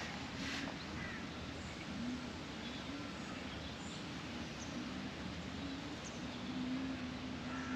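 Outdoor ambience: a steady noise like wind, a low droning hum that wavers in pitch, and a few faint bird chirps.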